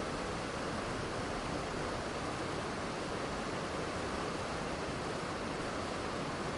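Steady waterfall, an even, unbroken rush of falling water with no changes.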